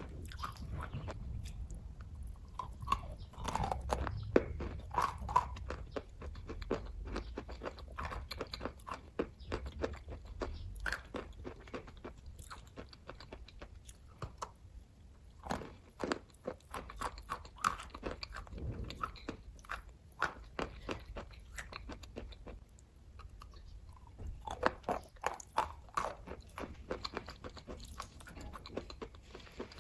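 A person chewing and biting kaju katli (cashew fudge) close to the microphone. Many quick mouth clicks and smacks come in irregular clusters, busier at times.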